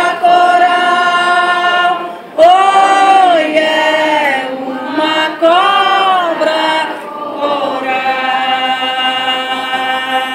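Two women singing a song together in long held notes, amplified through loudspeakers. The voices swell up and back down in two arching phrases after about 2 and 5 seconds, then settle into a long sustained note near the end.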